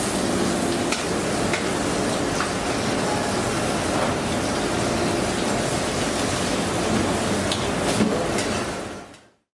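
Steady background noise of a commercial kitchen, with a few light clinks of a spoon against a metal tray. The noise fades out near the end.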